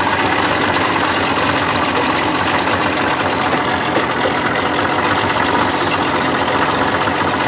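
Boat's outboard motor idling steadily at trolling speed.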